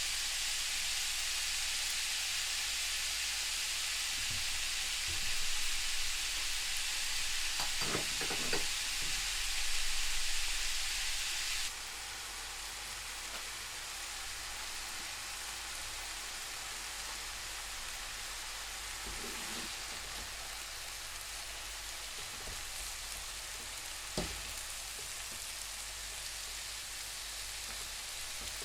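Beef frying in a pan: a steady sizzle that suddenly drops to a quieter level partway through. A few brief knocks and one sharp click of a utensil against the pan are heard.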